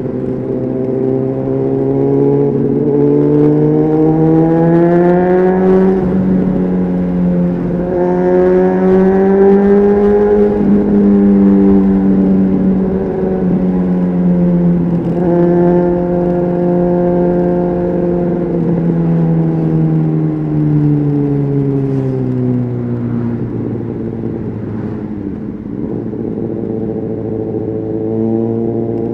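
Honda CBR600RR inline-four with a Leo Vince aftermarket exhaust, heard on board while riding. The engine note climbs through the revs, dips briefly about six seconds in, and climbs again. It then eases off slowly and drops to a steady lower note about three-quarters of the way through.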